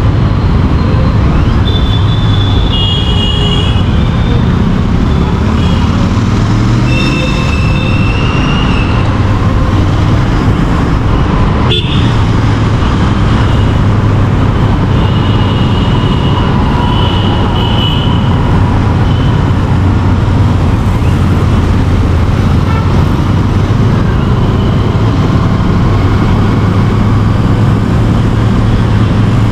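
Royal Enfield Interceptor 650's 648 cc parallel-twin engine running steadily under way in traffic, with vehicle horns tooting several times against it.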